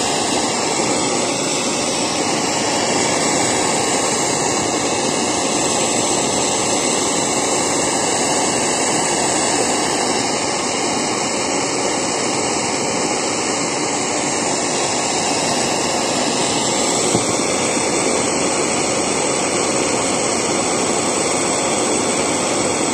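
1949 Spit-Fire A-100 alcohol blow torch burning with a steady hiss of its flame, with one faint click about seventeen seconds in.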